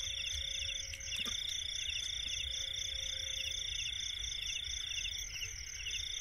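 Night insect chorus with crickets calling together: a steady high trill that breaks off briefly twice, with rapidly repeating chirps above it. A couple of faint clicks about a second in.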